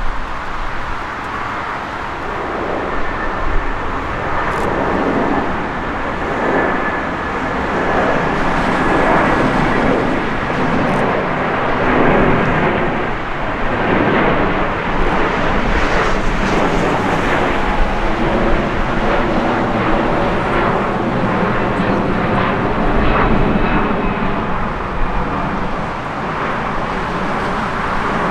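Jet airliner passing, its engines making a steady rush of noise with a faint high whine.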